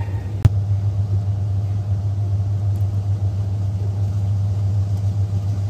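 A steady low machine hum, with a single sharp click about half a second in.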